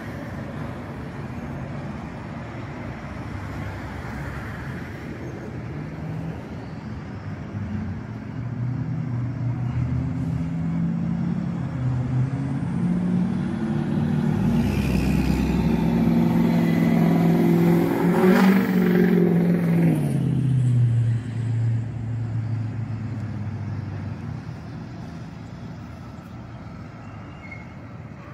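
A motor vehicle's engine approaches and passes close by, growing louder to a peak about two-thirds of the way in. Its pitch drops as it goes past, then fades away. Under it runs the low rumble of a long freight train rolling away.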